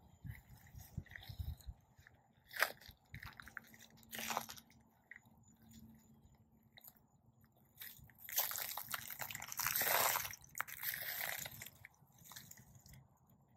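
Footsteps crunching and rustling through pine straw mulch, in irregular crunches with a longer, louder stretch of rustling about eight to eleven seconds in.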